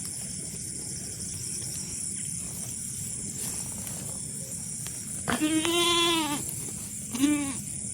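A goat bleating twice in the second half: one long call lasting about a second, then a short one.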